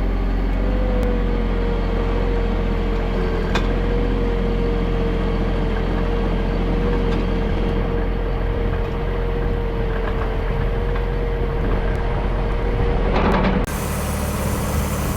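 Bobcat MT100 mini track loader running steadily, with a thin steady whine over the engine. The sound changes abruptly about two seconds before the end.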